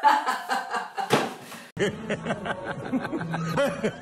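A woman laughing. A little under two seconds in there is a sudden cut to a different, noisier recording: a man's voice laughing over a low hum.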